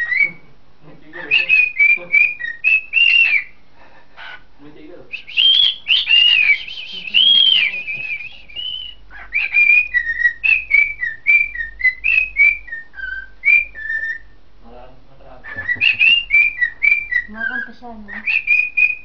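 Cockatiel whistling its song into a handheld microphone held at its beak: quick runs of short, high, gliding whistled notes, in four bursts with short pauses between.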